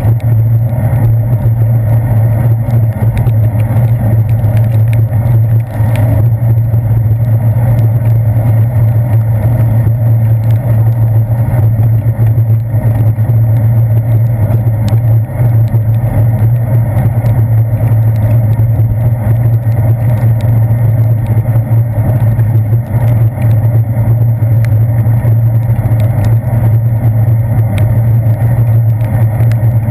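Steady, loud low rumble of wind and road vibration picked up by a handlebar-mounted GoPro Hero 2 on a bicycle rolling over wet pavement, with scattered faint ticks.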